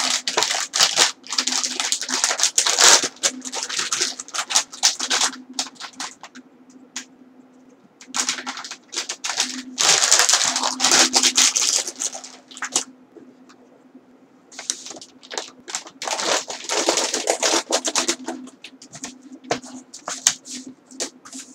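Clear plastic packaging crinkling and crackling as it is handled, in three long spells with short pauses between, thinning to scattered crackles near the end.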